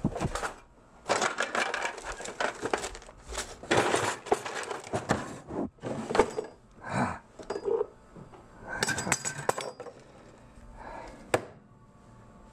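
Kitchen drawer being rummaged through: metal utensils clattering and clinking against each other in irregular bursts. It goes quieter near the end, with one sharp click.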